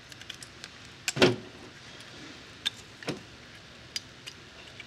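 Small plastic clicks and knocks as wire-harness connectors are worked loose and pulled off a bill validator's control board, with handling of the board and its wires. The clicks come irregularly, the loudest about a second in.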